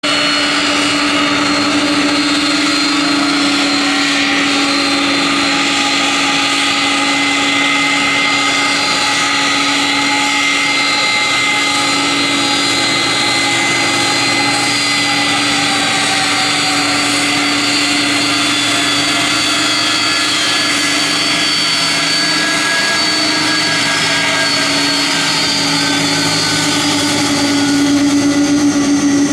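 Airbus A300-600F's jet engines running at taxi power: a steady whine with several held tones that drift slowly in pitch as the aircraft turns and rolls past, growing a little louder near the end.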